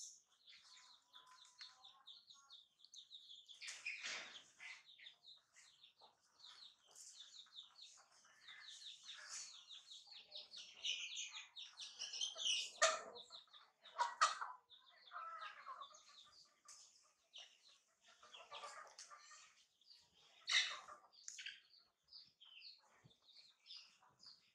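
Chickens clucking with many short high chirps throughout, a few louder calls near the middle and again later on.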